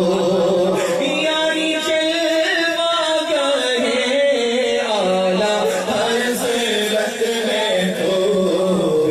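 A voice chanting an Islamic devotional melody over a steady low hum, which drops out for a few seconds in the middle.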